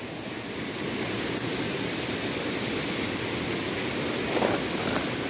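Shallow rocky stream running close by, a steady even rush of water.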